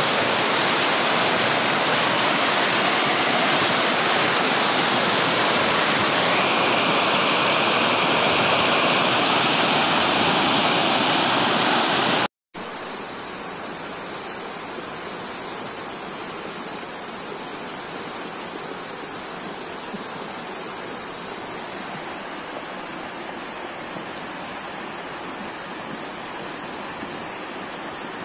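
Muddy flash-flood water rushing, a steady loud wash of noise. About twelve seconds in it cuts off for a moment and carries on quieter.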